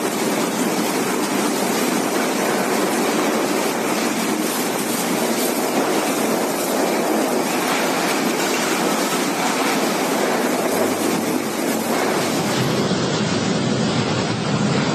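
Cyclone-force wind with driving rain, a loud, steady rush of noise that does not let up.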